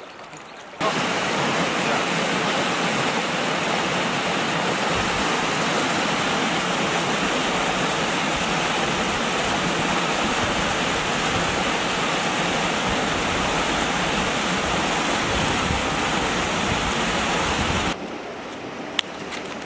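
Mountain creek rushing over boulders in a small cascade: a steady, loud rush of white water. It starts abruptly about a second in and stops just as abruptly near the end.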